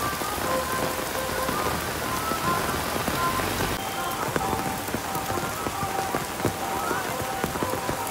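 Heavy rain pouring steadily onto a wet road and waterlogged ground. About four seconds in the sound shifts to closer rain, with many sharp individual drop strikes in the hiss.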